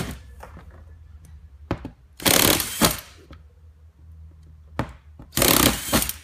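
Electric drill with a large bit running in two short bursts, about two seconds in and again near the end, boring holes through the plastic bin wall.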